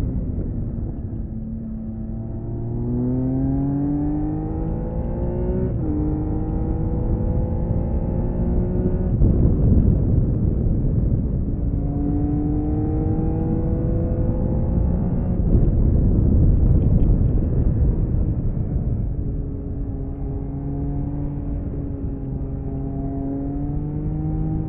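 1979 Honda CBX 1000's air-cooled inline-six engine under load on the road, pulling up through the revs in several rising runs that break off about six and nine seconds in and again near fifteen seconds, as the rider shifts or rolls off the throttle. Heavy wind rush runs under the engine note.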